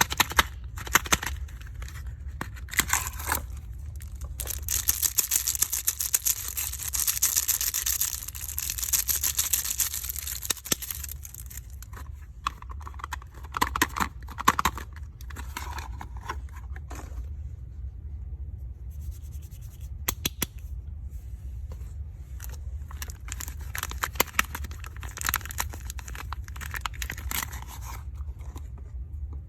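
Plastic soap packaging being crinkled and torn open by hand, with scattered sharp clicks and taps in between. There is a long, dense run of crinkling about five to eleven seconds in, and shorter bursts later.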